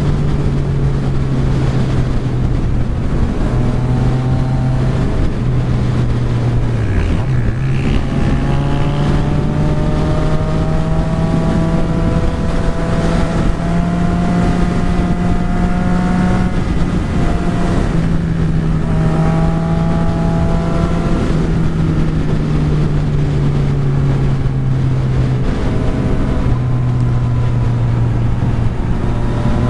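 Yamaha XSR900's inline-three engine running while riding, its pitch dipping about seven seconds in, climbing slowly with the throttle, then dropping again at about seventeen seconds, over steady wind rush on the microphone.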